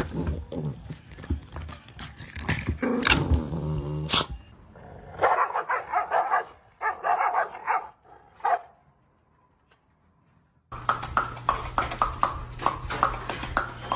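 Dogs growling and barking in several short bursts while playing, with a brief near-silent gap before a run of quick clicking sounds near the end.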